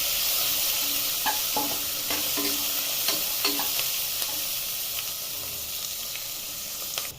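Chopped onions sizzling in hot oil in a pressure cooker while a spoon stirs them, clinking against the pot now and then. This is the sauté stage, which runs until the onions turn translucent. The sizzle cuts off suddenly near the end.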